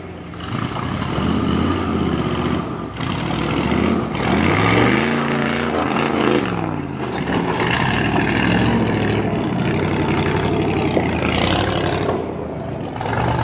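An old Ford F-series 4x4 pickup's engine revving up and down as the truck crawls over a rough dirt trail, its pitch rising and falling several times in the middle.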